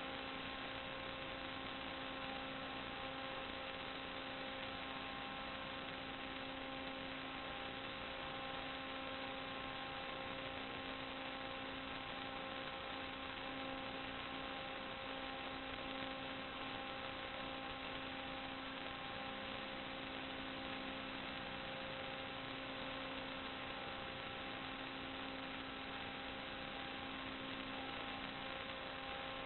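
Steady electrical hum with several faint fixed tones over an even hiss of static, unchanging throughout.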